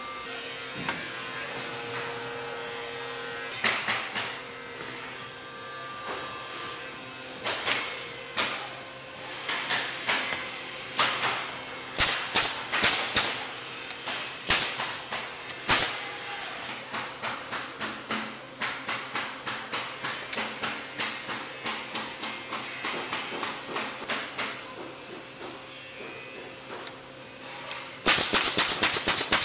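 Irregular wooden knocks, then a run of evenly spaced taps, as boards are handled and set on a workbench. Near the end a pneumatic coil nailer fires a rapid string of nails into the wooden boards, the loudest sound here.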